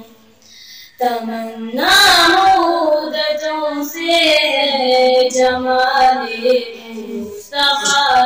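A girl singing a naat (Urdu devotional poem) into a microphone, in long drawn-out notes with wavering ornaments. She comes in about a second in and breaks off briefly near the end before the next line.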